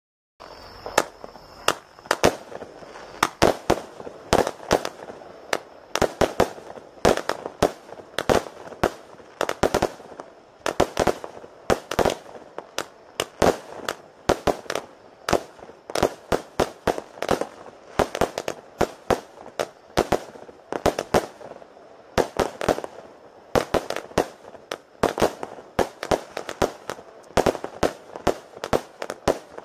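Jorge 'Ghost' 100-shot, 20 mm consumer firework battery firing: a rapid, continuous string of sharp shots, roughly two to three a second, starting about half a second in.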